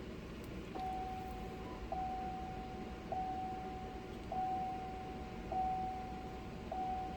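Dashboard warning chime of a 2008 Chevrolet Tahoe sounding repeatedly: a single steady tone about once every 1.2 seconds, six times, each starting with a faint click.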